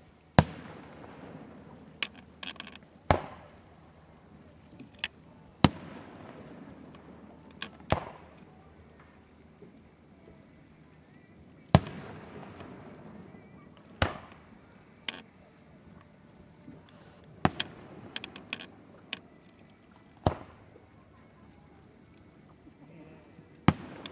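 Aerial fireworks shells bursting, about sixteen sharp booms at irregular intervals of one to four seconds, some in quick pairs, each trailing off in a rolling rumble.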